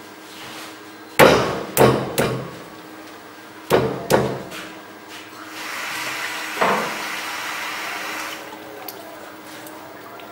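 A lump of clay slapped down onto a potter's wheelhead and thumped into place: five heavy thuds in the first four seconds or so, in a group of three and then a pair. A steady hiss follows for a couple of seconds.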